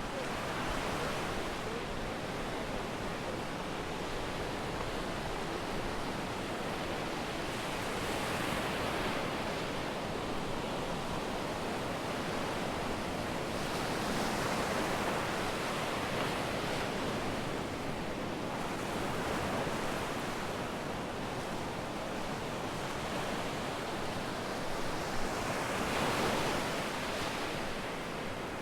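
Sea waves breaking and washing up on a sandy beach, a steady surf hiss that swells every five or six seconds as each wave comes in.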